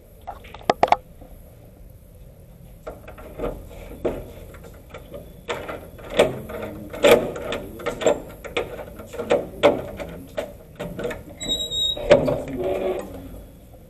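Metal gate being unlatched and opened: a run of sharp clanks, knocks and rattles, with a brief high squeal near the end.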